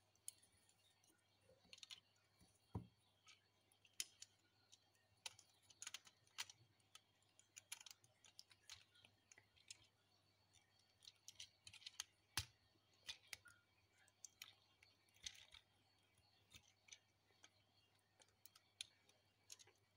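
Faint, irregular clicking of plastic LEGO pieces as the built LEGO Creator helicopter model is handled and turned over.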